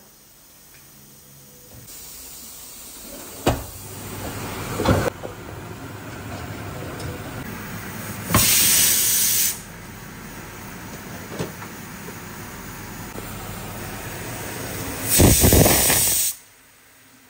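Food sizzling and steaming in a pot on an electric hob, with a few sharp knocks as the glass lid is handled. There are two loud bursts of hiss, one about eight seconds in and one near the end, when water from a kettle is poured into the hot pot.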